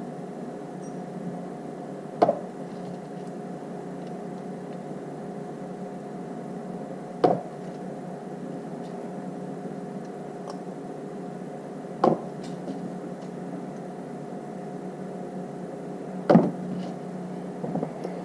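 Battery spot welder with auto pulse firing four sharp welds, roughly every four to five seconds, joining nickel fuse strip to battery cells. A steady electrical hum runs underneath.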